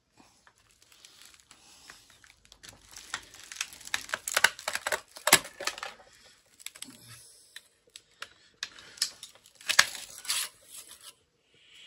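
Old tape and tar tearing and crackling as the tape-wrapped coils and steel laminations of a welder transformer are pried and pulled apart by hand. It comes in two spells of scratchy noise, about four seconds in and again near ten seconds.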